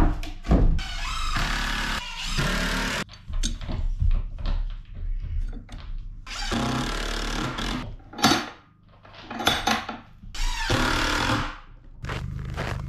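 Cordless drill-driver running in three bursts of one to two seconds each, driving screws into wood, with a few sharp knocks in between.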